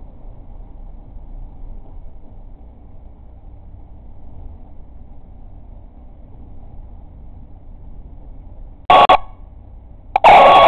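Air horn sound blasting from an IP camera's speaker: one short blast about nine seconds in, then a longer one starting near the end. Before that, only a faint low room hum.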